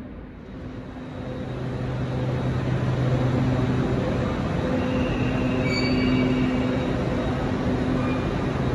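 Lumo Class 803 electric train running slowly into the platform, its steady hum growing louder over the first few seconds, with brief high-pitched squeals about five to six seconds in.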